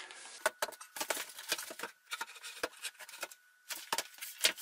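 Irregular light knocks, taps and clicks of hand tools and door-frame parts being handled and set down during a door frame installation.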